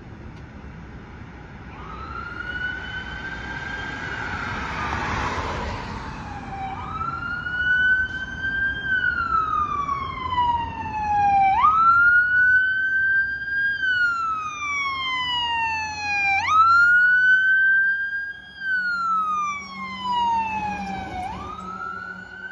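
Fire engine's siren wailing as the truck approaches and passes. Each cycle rises quickly and then falls slowly, repeating about every five seconds and growing louder as it nears, over the low rumble of road traffic.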